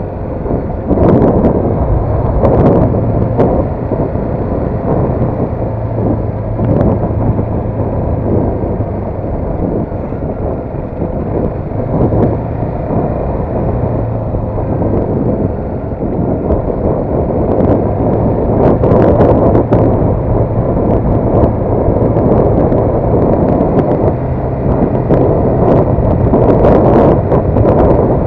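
CFMoto 250NK's single-cylinder engine running at low road speed, its note easing off and picking up again several times as the throttle changes, under heavy wind noise on the microphone.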